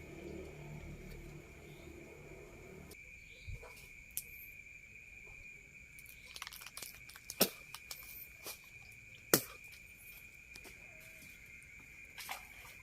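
Night insects, crickets, calling in one steady high-pitched trill, with a low rumble in the first three seconds. Two sharp clicks, about two seconds apart in the middle, are the loudest sounds.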